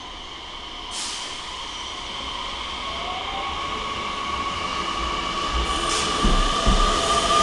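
Nishitetsu electric commuter train pulling out of the station. Its motor whine rises in pitch and grows louder as it gathers speed, and from about five seconds in the wheels thump over the rail joints. There is a brief hiss about a second in.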